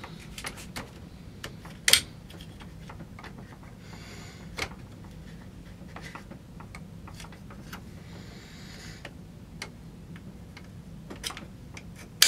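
Scattered sharp metal clicks and faint scraping as an AK's safety selector lever is worked into the receiver, a tight fit; the loudest clicks come about two seconds in and at the very end.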